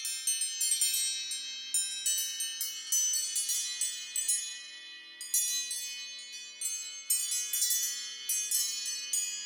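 An Apple iPhone ringtone made of bright, high chime-like tones: many struck notes, about two or three a second, each ringing on and overlapping the next, thinning out briefly halfway through and then building again.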